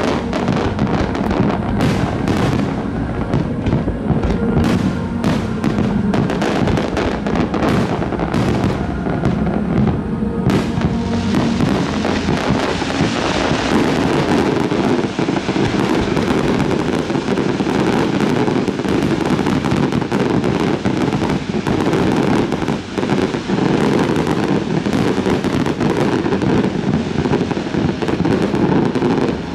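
Aerial fireworks bursting in quick succession: many separate sharp bangs and crackles for the first ten seconds or so, then a dense, continuous barrage. Music plays underneath.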